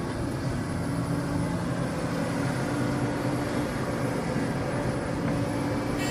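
Large diesel excavator's engine running steadily under load, a continuous low drone with a few held engine tones.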